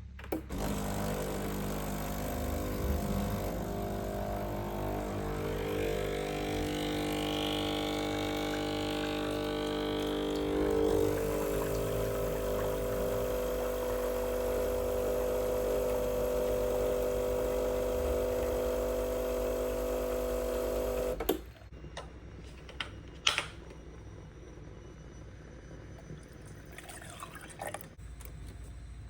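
Sage espresso machine running with a steady hum and hiss for about twenty seconds, then cutting off suddenly, followed by a few sharp clicks.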